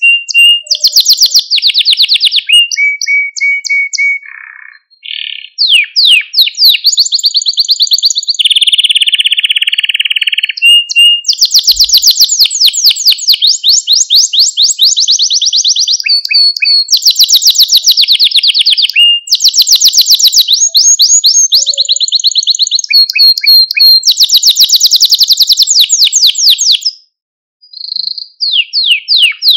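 Canary singing a loud, long song of fast trills and rolls, with short held whistles between them. The song breaks off about three seconds before the end, leaving only a couple of short notes.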